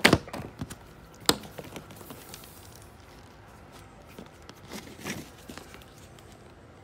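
A nylon zip tie being cinched tight around black plastic hose at a brass splice fitting, with two sharp clicks about a second apart near the start. Around five seconds in come the rustles and light knocks of the hose being moved over a plywood board.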